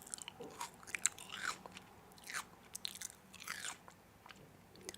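Crunchy biting and chewing of crisp food: irregular sharp crackles and short crunches, about one every second.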